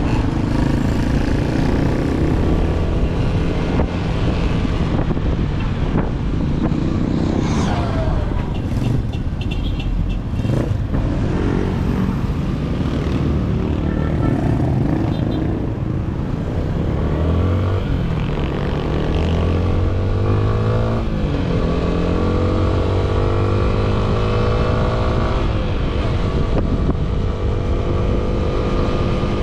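Yamaha Sniper 155 motorcycle's single-cylinder four-stroke engine running through its stock exhaust while riding. In the second half the engine pitch rises several times as it accelerates.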